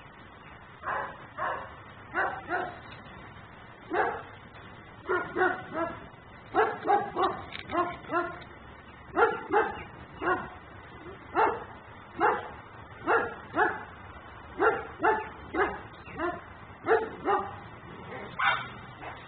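German Shepherd barking over and over, in single barks and quick runs of two or three, about one a second, starting about a second in.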